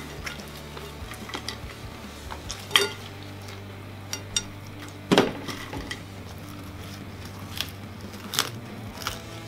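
Clinks and knocks of a plate and food being handled at a table, a few sharp ones, the loudest about three and five seconds in, over a low steady hum.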